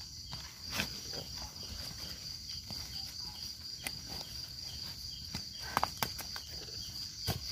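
Steady high-pitched insect chorus, with a few short sharp clicks and rustles scattered through it.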